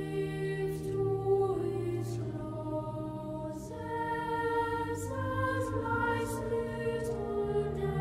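Slow church hymn music: long held chords that change every second or two over a sustained bass line.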